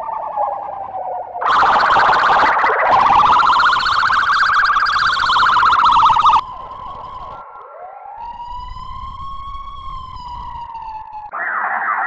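Fire truck siren wail, electronically altered into a string of effect variations that switch abruptly every few seconds. A slow falling wail gives way to a loud, harsh, distorted wail that dips and rises again, then a quieter swirling wail that swoops up from low, and near the end fast up-and-down sweeps.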